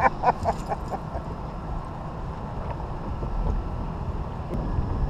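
Wind rumbling on the microphone: a steady low buffeting.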